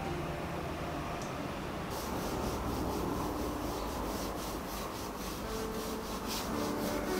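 Rhythmic rubbing strokes, about three a second, starting about two seconds in.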